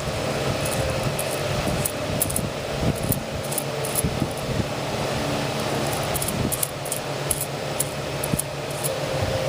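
A steady mechanical hum, with light, irregular clicks and clinks scattered through it.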